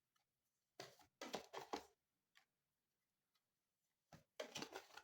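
Tarot cards being handled and drawn from the deck: two short clusters of quick light clicks and slaps, one about a second in and one near the end.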